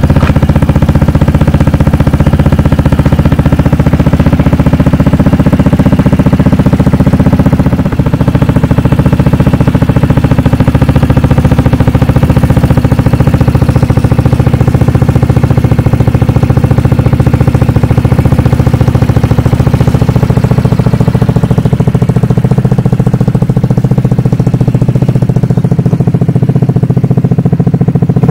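A 2020 Vespa GTS 300 HPE's single-cylinder four-stroke engine idling steadily through a Scorpion Red Power aftermarket exhaust.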